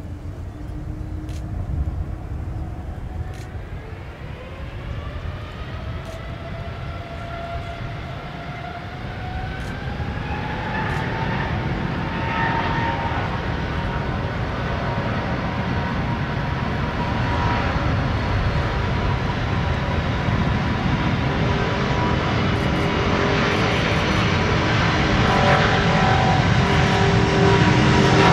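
Boeing 747-400's four jet engines on final approach, growing steadily louder as the airliner nears. A whine rises in pitch a few seconds in and then holds steady over the roar.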